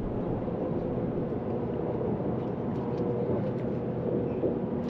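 Boat motor running steadily with the boat underway, a constant engine drone with a faint steady hum.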